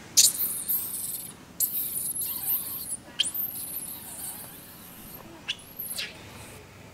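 Infant long-tailed macaque screaming: very shrill, high-pitched shrieks for about three seconds with one short break, then two shorter squeals that rise and fall. These are an infant's distress cries, typical of a baby being kept from nursing by its mother.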